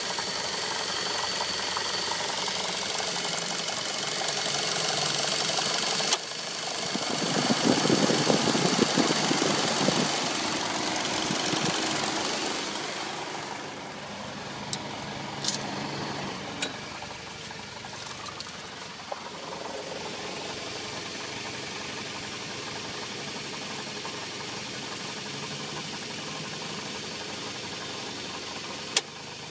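Mitsubishi Lancer Evolution X MR's turbocharged four-cylinder running, swelling louder and rougher for a few seconds. Around the middle come several sharp knocks, and one more near the end. The owner suspects the twin-clutch SST gearbox is making the knock.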